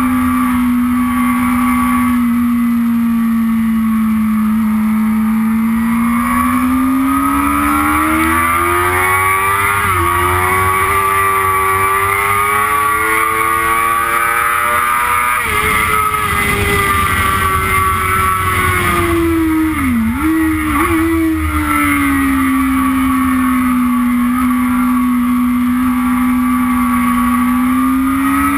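Yamaha YZF-R6 inline-four engine heard onboard at speed: revs hold, then climb for several seconds with a brief break for an upshift, fall off, dip sharply twice in quick downshifts about two thirds in, and climb again near the end. A steady rush of wind noise runs underneath.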